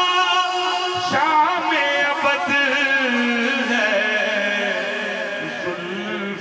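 Male voice singing a naat, drawing out long ornamented notes with a wavering pitch and no clear words. Over the last few seconds the held phrase steps slowly down in pitch and gets a little softer.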